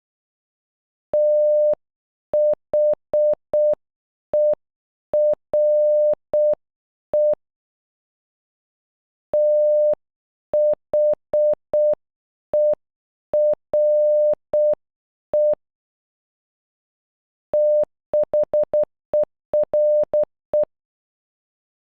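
Computer-generated Morse code beeps on one steady tone, spelling the word "THERE" (- .... . .-. .). The word is sent twice slowly at half speed, then once at normal speed near the end, with the dots much shorter and closer together.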